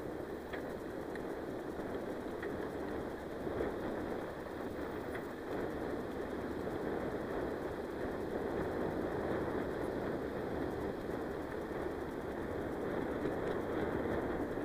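Mountain bike rolling fast over a dirt singletrack: a steady rumble of tyres on dirt and the bike rattling, with a few small knocks over bumps.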